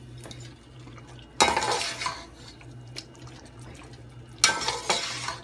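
Metal spoon scraping and clattering against a steel cooking pot while stirring chicken and potato pieces in thick masala. Two strokes about three seconds apart, each lasting about a second, over a low steady hum.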